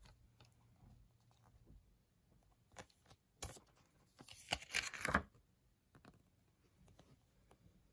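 A few light clicks of a plastic Blu-ray case being handled, then about four seconds in a second-long rustle of the paper insert being slid out from the case's clips.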